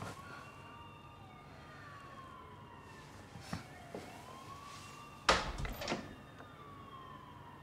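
A siren wailing in slow, rising-and-falling sweeps, faint under the room. About five seconds in there is one loud thud, with a couple of softer clicks before it.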